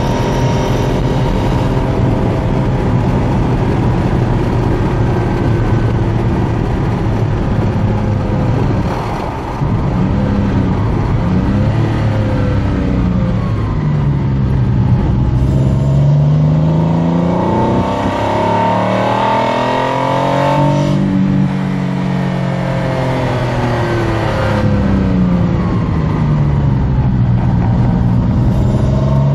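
Lister Bell Lancia Stratos replica's engine running under way, heard from inside the cabin, its revs climbing and falling several times as the car is driven.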